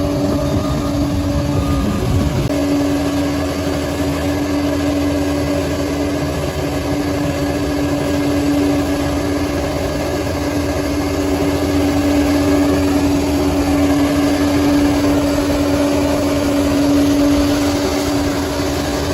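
Bulldozer engine running steadily, a constant hum that holds one pitch throughout.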